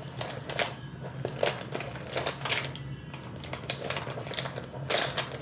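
Irregular light clicks and clatter of small makeup containers and tools being handled and set down, over a steady low hum.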